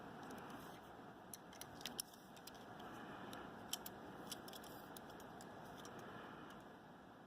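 Small scissors snipping electrical tape: a scattering of faint, sharp, irregular snips and clicks over a steady low hiss.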